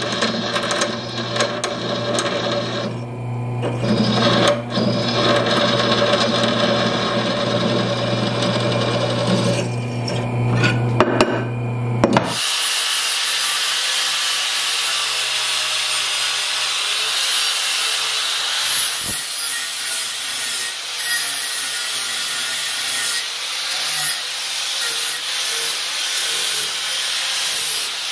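Delta drill press running and drilling into steel, a steady motor hum. About twelve seconds in, this gives way to an angle grinder grinding steel angle iron, a steady high hiss.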